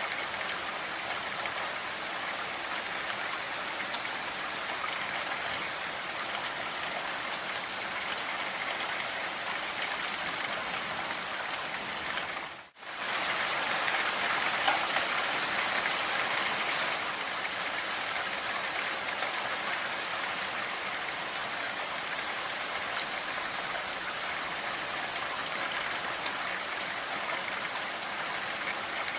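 Steady rain falling, a dense, even hiss of many drops. It cuts out for an instant about halfway through, then carries on slightly louder.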